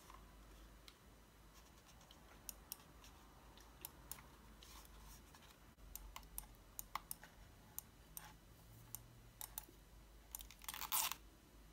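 Side buttons of a Corsair Harpoon RGB Wireless mouse being pressed by hand: a scatter of faint, sharp plastic clicks among quiet handling noise, with a short, louder rustle near the end.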